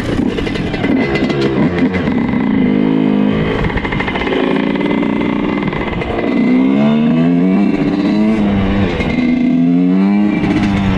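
Suzuki RM125 two-stroke motocross bike ridden on the road, its engine revs climbing and dropping several times as it accelerates.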